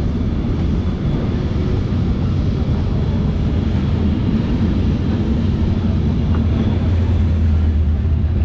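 Carris Remodelado heritage tram running through the streets, heard from on board: a steady low rumble that grows stronger near the end.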